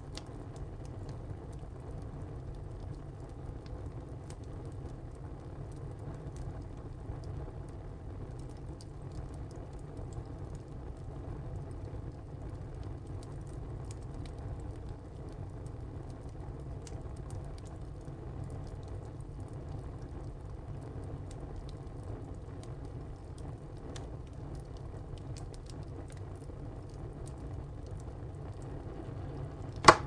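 Wood fire burning in a tile stove: a steady low rumble of the flames with frequent small, irregular crackles and snaps from the burning wood, and one louder snap at the very end.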